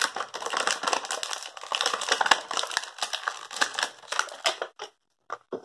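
Clear plastic wrapping being crinkled and pulled off a small toy by hand: dense, irregular crackling for about four and a half seconds, then a few separate crinkles near the end.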